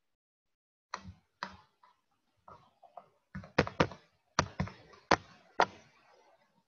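A run of about a dozen irregular sharp taps and knocks, starting about a second in and loudest near the middle.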